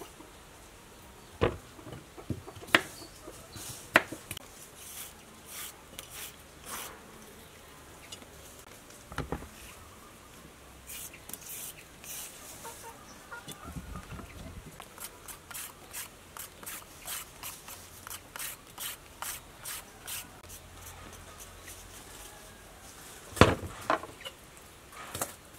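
A knife scraping the skin off long cucumbers in short, repeated strokes, about two or three a second through the second half, with a few sharp knocks, the loudest near the end.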